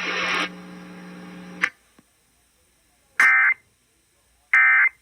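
A steady electronic hum that drops in level and cuts off with a click, then two short bursts of Emergency Alert System data tones about a second apart: the digital End of Message (NNNN) header that closes an EAS alert.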